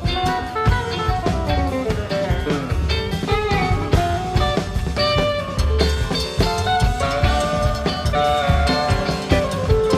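Live rock band playing an instrumental passage: electric guitar lead lines with bending notes over drum kit and bass.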